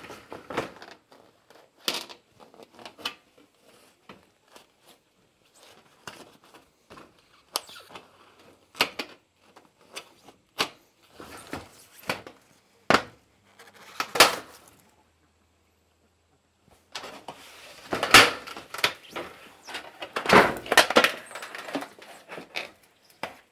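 Heavy PVC decoy glove rubbed and dragged hard against the edge of a corrugated tin roof sheet: a string of irregular scrapes and metallic knocks, with a short pause about two-thirds through and a denser, louder run of scraping near the end. It is an abrasion test, rough enough to put a small tear in the glove's surface.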